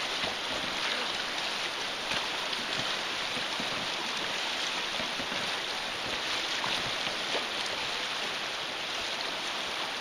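Shallow river riffle rushing steadily, with oar splashes as an inflatable pontoon boat is rowed upstream against the current.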